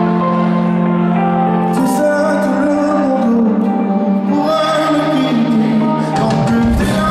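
Live pop music heard from the audience in an arena: held keyboard chords, with a singer's voice coming in about halfway. Audience cheering swells near the end.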